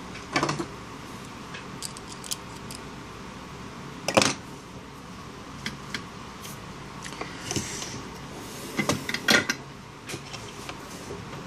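Scattered sharp clicks and light taps of small metal parts and tools being handled, as the replacement SIM card connector for a phone repair is picked up. The loudest taps come about half a second in, about four seconds in and twice near nine seconds.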